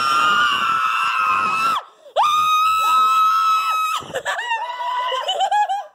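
Several people screaming with excitement: two long, high-pitched held screams of about two seconds each, then shorter wavering cries near the end.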